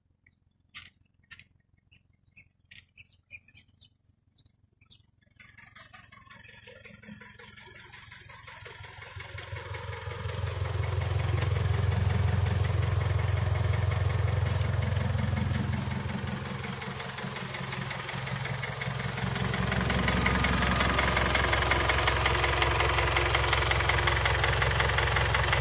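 Isuzu 4JJ1-TC four-cylinder turbodiesel engine idling steadily, running again after its shorted wiring harness was repaired. It comes in about five seconds in, after a few faint clicks, and grows louder over several seconds before holding steady.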